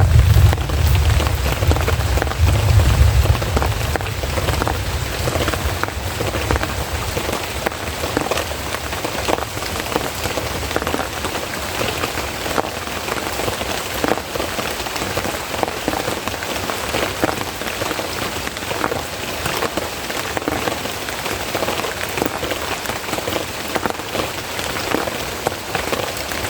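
Heavy rain falling steadily, with many close drops heard as short clicks and splashes. A low rumble in the first few seconds dies away about four seconds in.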